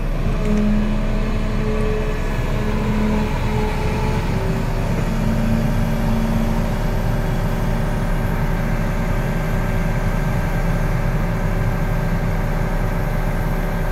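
Volvo EC380 excavator's diesel engine running steadily. A steady whine sits over it for the first several seconds and stops about seven seconds in.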